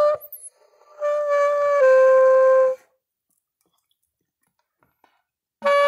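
Saxoflute, a saxophone mouthpiece and neck taped onto a flute body, playing two held notes, the second a step lower, then a pause of a few seconds before another note starts near the end. The loose, taped joint makes it hard to control.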